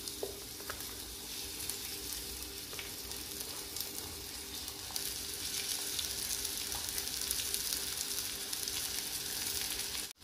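Freshly added sliced onions sizzling and crackling in hot oil in a steel kadhai, the sizzle growing a little louder about halfway through. It cuts out briefly near the end.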